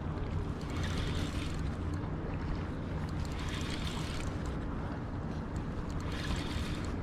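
Steady rush of water with wind on the microphone, swelling into a louder hiss about every three seconds.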